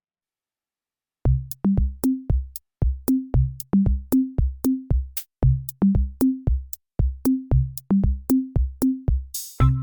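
Background music: silence, then about a second in a steady electronic drum-machine beat begins, with deep kick-drum hits and crisp clicks.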